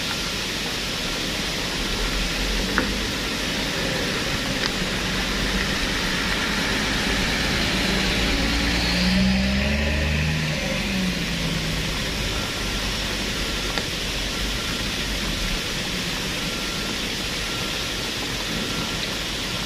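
Hino tanker truck's diesel engine running slowly in steady heavy rain. About eight seconds in it revs up, then falls back after a couple of seconds.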